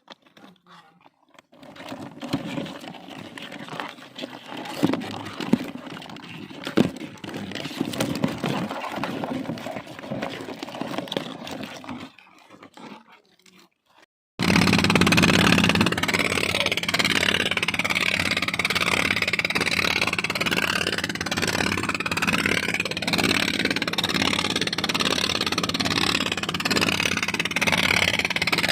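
Scattered knocks, clicks and scraping of things being handled. Then, after a sudden cut about two-thirds of the way in, an engine runs loud and steady without change.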